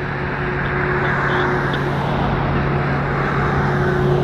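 A motor running with a steady low hum over a broad rumble, slowly growing louder.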